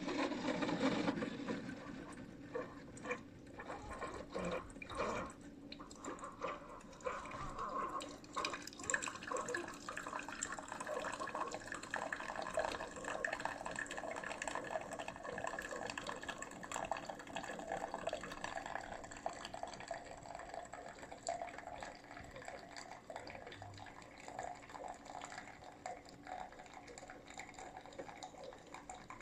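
Keurig K-Supreme Plus SMART single-serve brewer dispensing coffee: a steady stream of hot coffee running into a mug, starting suddenly and easing off toward the end as the cup fills.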